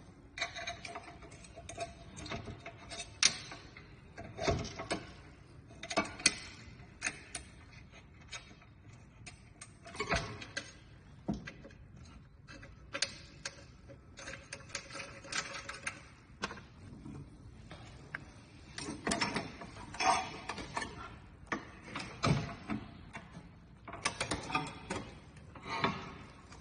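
Irregular clicks, taps and clatter of screws and metal parts being handled and turned by hand, fastening a ventilator to its air compressor frame, with a few short squeaks.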